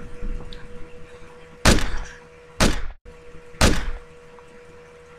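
Three sharp gunshot sound effects, about a second apart, each fading within half a second.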